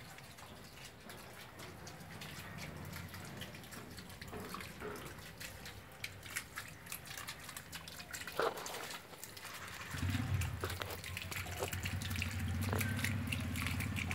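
Water trickling and dripping through a small homemade garden watering channel. A steady low hum joins about ten seconds in.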